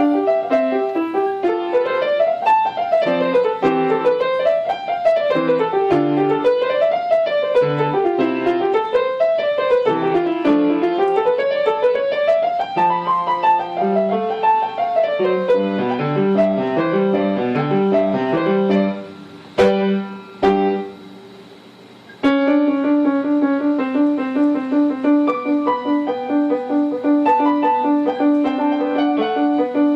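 Piano music playing fast arpeggios that sweep up and down. It drops away briefly about two-thirds of the way through, with a couple of clicks, then comes back as quick repeated notes.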